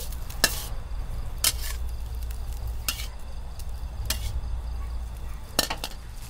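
Fried rice sizzling in a hot pan while a metal spatula stirs it, knocking and scraping against the pan about five times.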